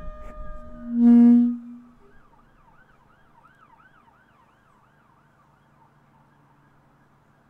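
A loud, low, held note about a second in, after brass-like sustained tones. It is followed by a faint emergency-vehicle siren wailing up and down about twice a second.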